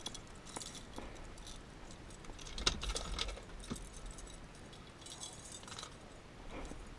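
Scattered light clicks and small metallic clinks, as of gear being handled, with a sharper knock a little under three seconds in.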